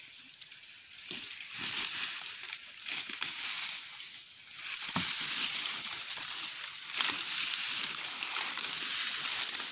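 Leaves and branches of a fallen tree rustling and crunching, with scattered small snaps of twigs.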